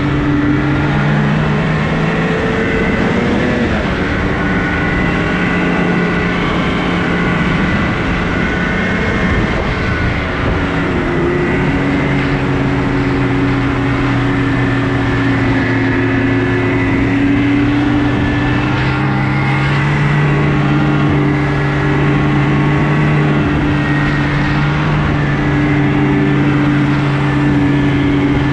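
Snowmobile engine running under way on a groomed trail, its note easing off about two seconds in and picking back up around eleven seconds, then holding steady with a slow rise.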